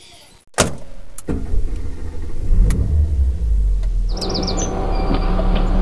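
A click about half a second in, then a car engine starts up and runs with a steady low rumble that builds over the next second or so. Near the end, birds chirp over it.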